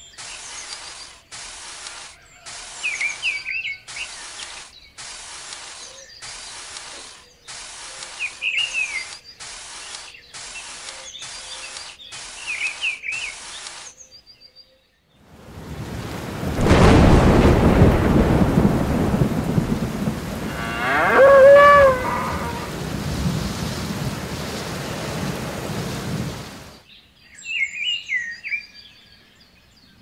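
A small plastic rake scraping through fine sand in regular strokes, about one a second, with birds chirping. About fifteen seconds in, a thunderstorm takes over: thunder rumbling and heavy rain, with a cow mooing once in the middle; it stops abruptly, and birds chirp again near the end.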